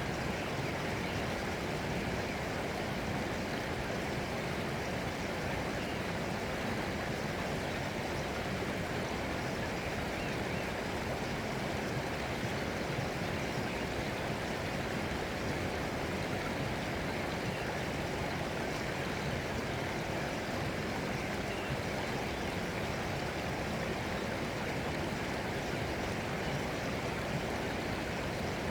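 Flowing water running in a steady, unbroken rush with no pauses or distinct splashes.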